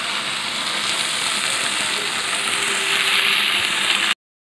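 Okra pieces frying in oil in a kadai, sizzling steadily under the freshly added ground tomato-peanut masala paste as it is stirred in. The sizzle grows a little louder about three seconds in, then cuts off abruptly.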